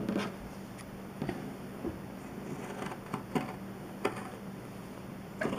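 Fabric shears cutting through several folded layers of cotton fabric: separate short snips, a second or so apart, with a few close together near the end, over a low steady hum.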